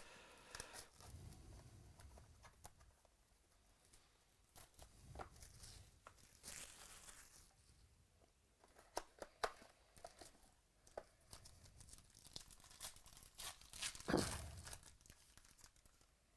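A sealed box of trading cards being unwrapped and opened by hand: plastic wrapping tearing and crinkling, with scattered small clicks and rustles, and a louder rustle near the end.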